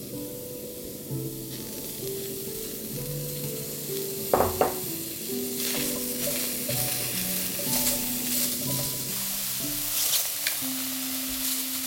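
Mushrooms sizzling as they sauté in a frying pan and are stirred, with two sharp knocks of a utensil against the pan about four seconds in; the sizzle grows louder in the second half. Gentle background music plays throughout.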